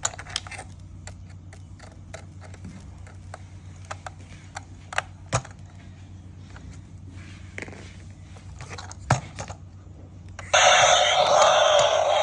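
Scattered light clicks and scrapes of plastic toy parts and packaging being handled, over a steady low hum. About ten seconds in, a loud electronic tune starts abruptly and keeps going.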